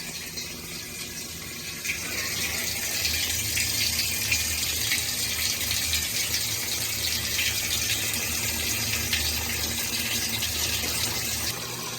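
Top-loading washing machine filling with hot water at the start of a cleaning cycle: water gushing steadily into the drum. A low steady hum joins about two seconds in and drops away near the end.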